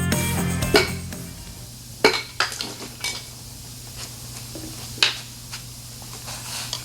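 Background music ending about a second in, then a few sharp metallic clinks and knocks as metal engine parts and tools are handled during the teardown of an AMC 304 V8, over a steady low hum.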